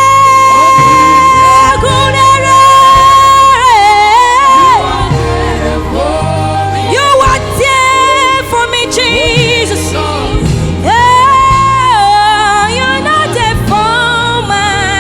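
Gospel worship music: a voice holds long, high, wavering notes over a steady low accompaniment.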